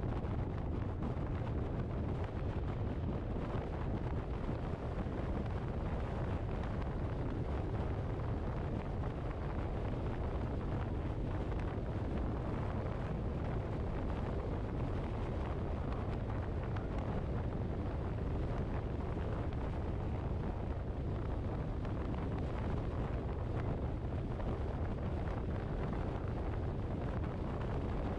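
Steady wind and road noise from a moving vehicle, with wind rumbling on the microphone.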